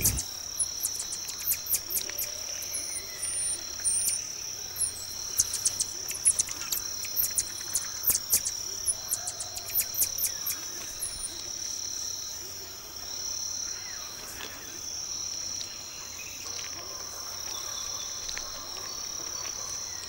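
Steady high-pitched rainforest insect drone, with many short, very high chirps and squeaks from marmosets through the first half, fitting the young begging for a share of the prey.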